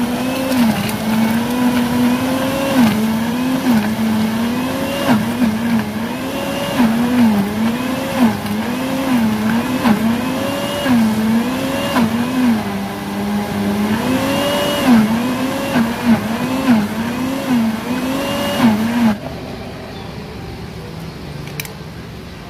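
Countertop blender motor running while blending a smoothie, its pitch dipping and recovering about once a second as the load on the blades shifts. It cuts off suddenly near the end.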